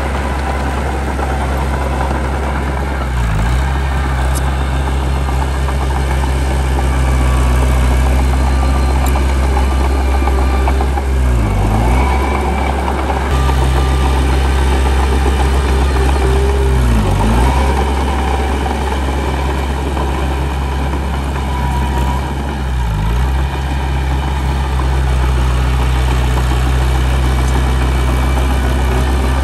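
Heavy diesel engine of earthmoving machinery running steadily. Its pitch dips briefly and recovers about five times.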